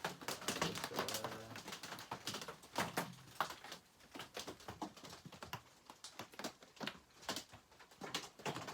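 Rain pattering on the shop roof: irregular sharp ticks and taps, heavy enough to spoil the recording.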